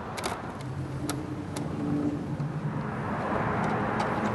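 Faint sharp clicks of a Phillips screwdriver and small screws being worked out of a scooter's plastic handlebar cover, under a rushing vehicle noise that grows louder from about halfway through.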